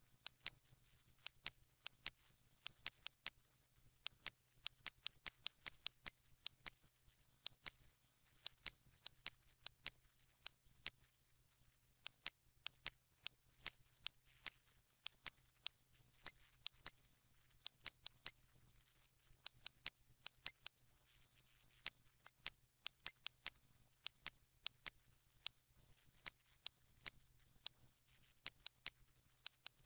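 Computer mouse buttons clicking at irregular intervals, single clicks and quick double clicks, over a faint steady low hum.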